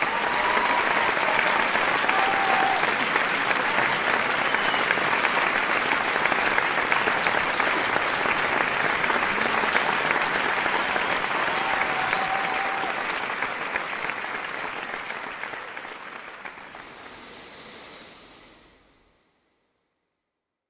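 Audience applauding steadily, thinning out over the last few seconds and stopping about nineteen seconds in.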